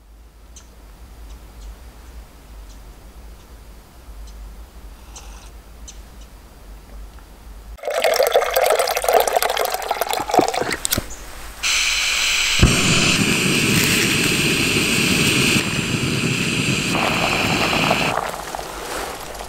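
Water poured from a jug's spigot into a Jetboil stove's cup for about two seconds, after a quiet stretch. Then the gas hisses as the valve opens, a sharp click as it lights, and the burner runs steadily until it drops back near the end.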